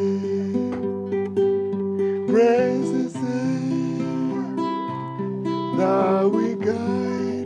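A man singing a hymn to his own nylon-string classical guitar, the chords strummed and picked under slow sung phrases.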